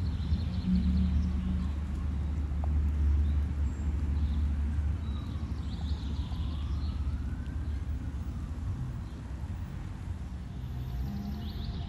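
Steady low rumble of distant city traffic, with small birds chirping briefly now and then.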